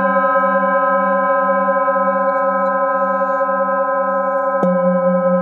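Singing bowls ringing, with several overlapping tones held steadily and a slow wobble in the lowest one; a bowl is struck again about four and a half seconds in.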